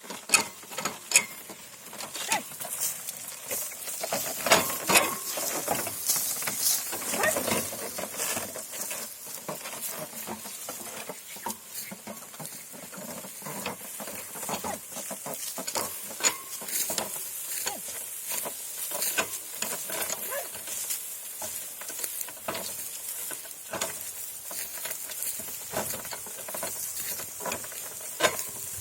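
Bullock cart rolling along, its wheels and frame rattling and creaking in a steady run of irregular knocks and clicks, with the sharpest knocks in the first several seconds.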